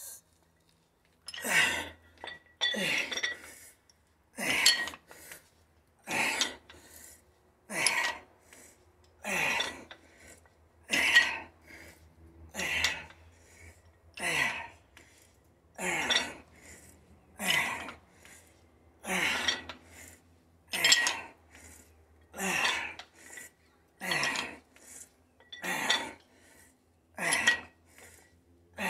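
Forceful breaths with each rep of dumbbell front raises, about one every second and a half, some falling in pitch, mixed with the clink of the dumbbells' metal plates.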